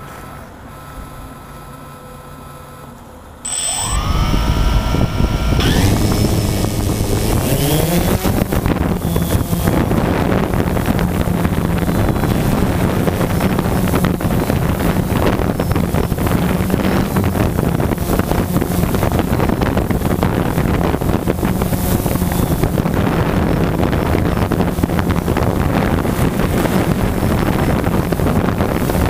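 DJI Phantom 2 quadcopter's electric motors and propellers spinning up about three seconds in, rising in pitch for a few seconds as it lifts off. They then settle into a steady buzzing hum as it hovers, heard close up from the drone's onboard camera with wind noise from the propeller wash.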